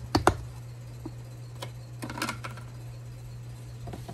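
A plastic clip-lock food storage container being handled: two sharp plastic clicks right at the start as its lid clasps snap, then a few lighter clicks and knocks about two seconds in.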